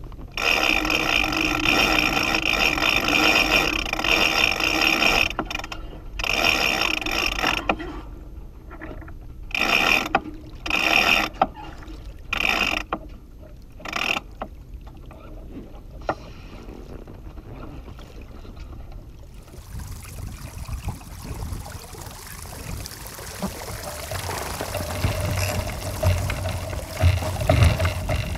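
Sailboat rigging hardware working as the jib is hoisted by hand: a long spell of mechanical sound, then several short bursts as the line is hauled in pulls. From about twenty seconds in, a steady rush of wind and water takes over.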